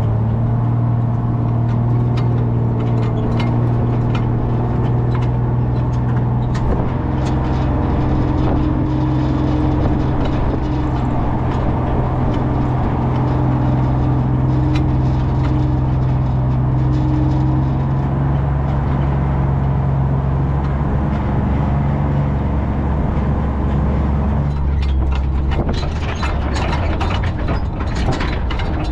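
Dodge M37 military truck's flathead straight-six engine running steadily under way over rough ground. About three-quarters of the way through the engine note drops, and near the end loose body panels and tow gear rattle and clank over bumps.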